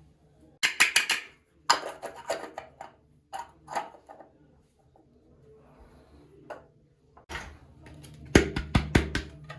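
Small plastic pieces of a Hello Kitty toy kitchen set being handled, clicking and clattering against each other. There is a quick run of sharp clicks about a second in, scattered clicks through the middle, and another rapid run of clicks near the end.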